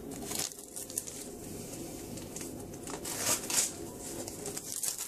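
Paper wrapper of a fresh baker's yeast cube crinkling as it is unwrapped by hand, in a few short rustles.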